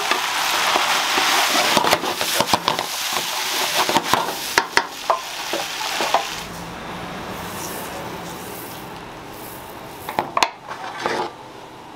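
Fish cake, onion and carrot stir-frying in a wok: a loud sizzle, with a wooden spatula scraping and knocking against the pan. About six seconds in, the sizzling falls away to a much quieter hiss, and a few sharp clicks come near the end.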